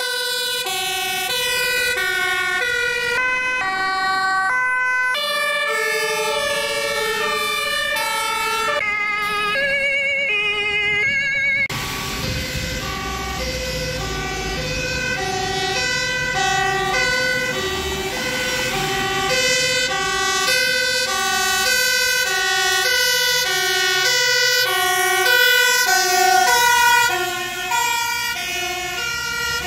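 Dutch fire engines' two-tone sirens sounding, the pitch alternating between a high and a low note about twice a second, with overlapping sirens at times. The sound cuts abruptly about twelve seconds in to another fire truck's two-tone siren, with engine rumble beneath.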